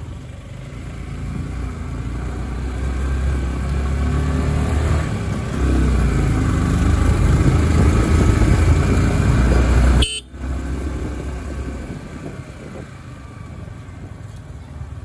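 Motorcycle engine running with wind buffeting the microphone while riding. It grows louder over the first several seconds, drops out sharply about ten seconds in, then carries on more quietly.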